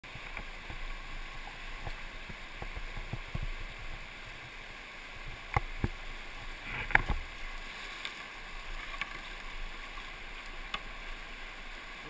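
Rushing whitewater of a class IV rapid, heard from a kayak in the rapid, a steady wash of water. A few sharp knocks stand out from about five and a half to seven seconds in.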